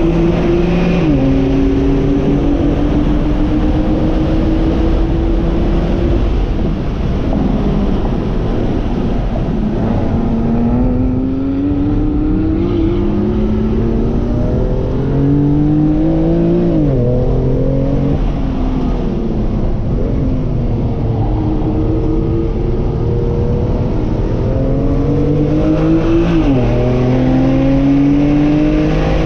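BMW M2 CS's twin-turbo inline-six, heard from inside the cabin while lapping a track. The engine note climbs under acceleration and drops sharply at each gear change, three times. Between about seven and fifteen seconds in it is quieter and less even.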